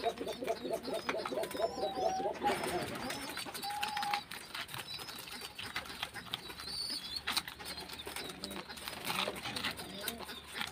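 Guinea pigs feeding on a banana leaf, with many small clicks of chewing and tearing. In the first couple of seconds there is a fast run of low pitched calls, about five a second, that stops abruptly.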